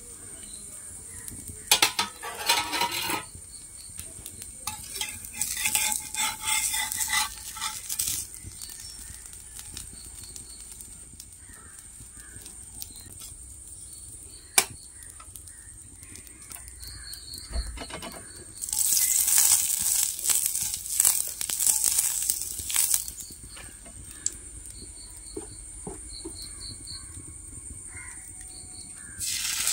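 Dosa-making sounds: a steel lid and a steel spatula clink and scrape against a cast-iron dosa pan, with several short bursts of hissing sizzle from the hot pan. The longest burst comes about two-thirds of the way through, and there is a sharp clink near the middle.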